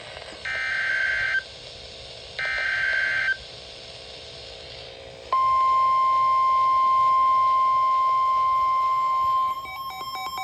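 Emergency Alert System signal over NOAA Weather Radio: two short bursts of the warbling SAME data header, then the steady 1050 Hz weather radio warning tone held for about four seconds. Rapid beeping starts near the end.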